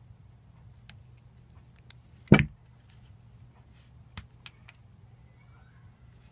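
Lightsaber parts being handled: scattered light clicks, with one loud sharp knock a little over two seconds in and two smaller clicks about two seconds later.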